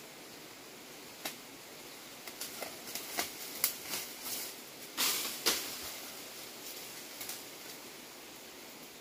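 Irregular sharp snaps and rustling of branches and leaves in a tree, thickest between about one and six seconds in, with the loudest pair of cracks about five seconds in, over a steady faint hiss.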